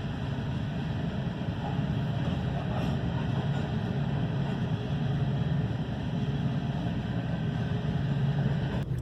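A motor vehicle driving at steady speed: a constant low engine hum under road noise.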